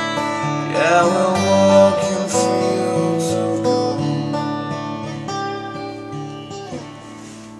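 Acoustic guitar playing the closing chords of the song's outro, dying away near the end.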